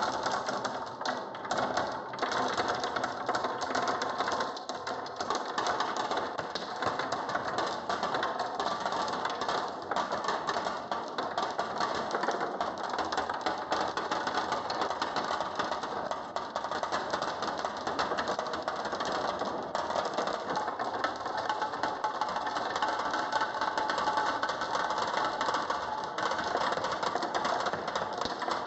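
Many marbles rolling and clacking down a wooden marble run, a dense, steady rattle of rapid clicks over a rolling rumble.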